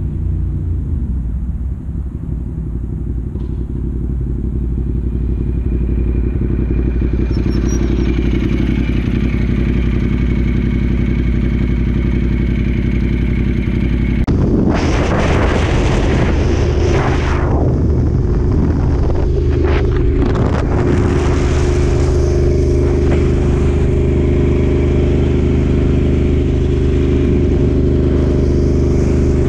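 Ducati Diavel's L-twin engine, first running at low revs with a fast pulsing beat. About halfway through it turns suddenly louder and rougher for a few seconds, then settles into a steady drone under way, with wind noise.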